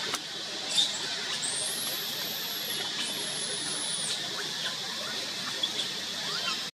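Baby macaque squealing: two long, very high, thin squeals that rise and then fall, over a steady background hiss.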